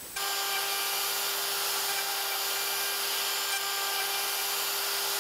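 CNC router spindle running an end mill along a Richlite fingerboard with epoxy inlays in a finishing pass: a steady whine over the hiss of cutting. It cuts in abruptly just after the start.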